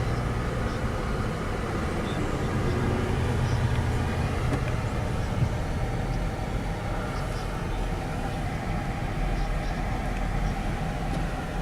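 Steady road and engine noise inside a moving car, a low even rumble with no sudden events.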